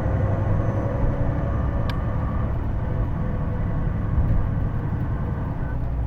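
Hino Blue Ribbon II (PJ-KV234L1) diesel city bus under way, heard from inside the cabin: a steady engine and road rumble with a faint whine from the transmission. That whine is this bus's distinctive gearbox noise, which makes it sound like an automatic. A short tick about two seconds in.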